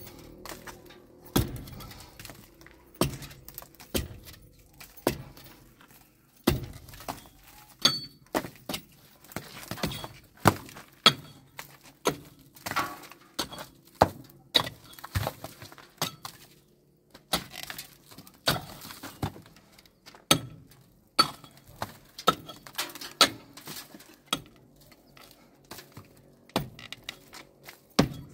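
Irregular knocks, clinks and clatters of hard objects being handled, one every half second to second and a half, with a short lull about two thirds of the way through.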